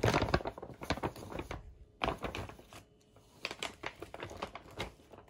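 Paper or gift packaging being handled: irregular rustling and crinkling in short clusters, loudest in the first second and again from about two seconds in.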